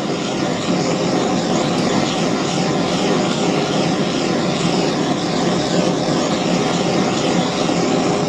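Blow lamp burning steadily as its flame is played over an aluminium gearbox casing to warm it gently before new bearings are fitted.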